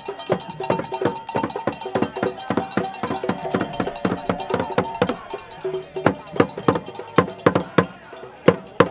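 Traditional Ghanaian hand drum, a barrel drum struck with a curved stick, beating a fast rhythm of sharp strokes, about three or four a second. A steady held pitch sounds beneath the drumming for the first five seconds or so, and the strokes come louder and more spaced out after that.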